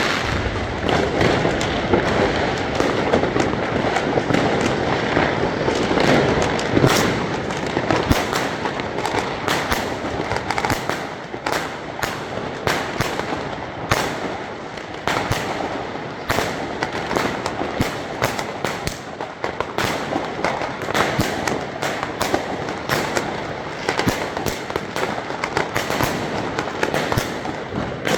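Many New Year's fireworks and firecrackers going off at once: a continuous, irregular crackle of sharp bangs and pops, densest in the first several seconds.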